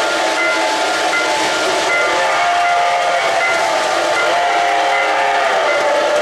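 Lionel O-gauge model steam locomotive and freight cars rolling over three-rail track with a steady rumble, while the locomotive's onboard sound system blows a steam whistle from about two seconds in until past five seconds.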